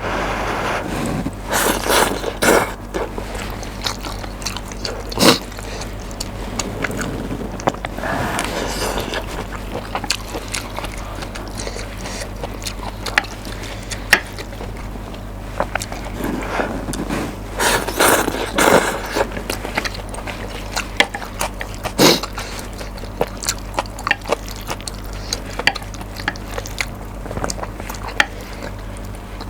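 Close-miked eating of spicy mixed noodles: wet slurping and chewing in bursts, with scattered sharp clicks, over a steady low hum from the microphone.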